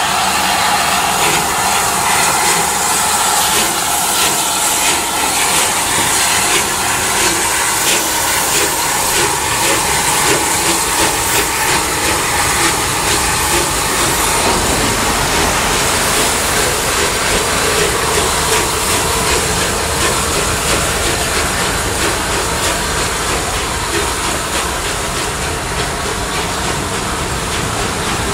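Rebuilt Bulleid Battle of Britain Pacific 34053 Sir Keith Park, a three-cylinder steam locomotive, working past with steam hissing and exhaust. From about halfway its train of coaches rolls by with a rumble and click of wheels over the rails.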